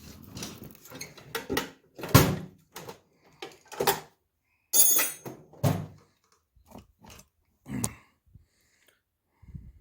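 Irregular knocks and clunks of hand tools and metal parts being handled and set down, about ten of them, the loudest about two seconds in. A short hissing scrape comes about five seconds in.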